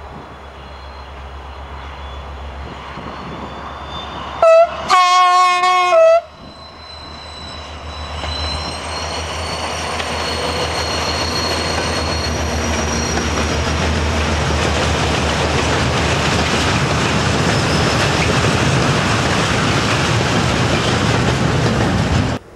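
Freight train locomotive sounding its horn, a short toot then a blast of about a second, as it approaches; then the loaded freight train of steel-coil wagons passing close by, its rolling noise rising and holding steady until it cuts off suddenly near the end.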